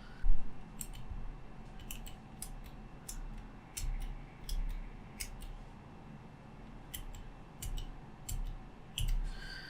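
Clicky mechanical keyboard switches pressed one at a time, giving a dozen or so sharp clicks at uneven intervals, some in quick pairs, with a brief ringing tone near the end.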